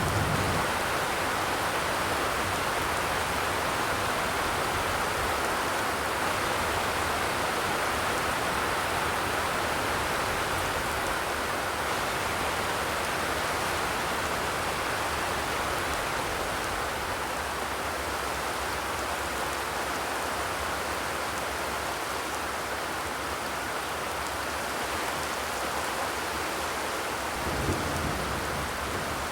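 Steady rainfall: an even hiss of heavy rain falling on surfaces, with a brief low rumble near the end.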